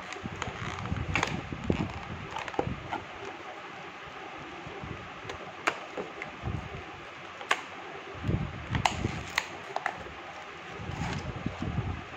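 Hands opening a small cardboard-and-plastic earphone box: scattered sharp clicks, crinkles and rustles of the packaging, with low handling bumps around the middle and near the end.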